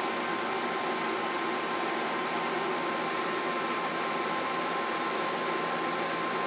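Steady hiss of test-bench equipment with a thin, steady tone near 1 kHz: an audio test tone modulating the Stryker SR-955HP's AM carrier during bench alignment.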